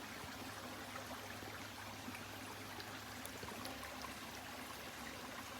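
Steady rush of running water, with a few faint light clicks.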